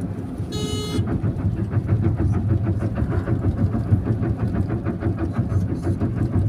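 Steady road and engine rumble heard inside a moving car. About half a second in there is a short, half-second beep.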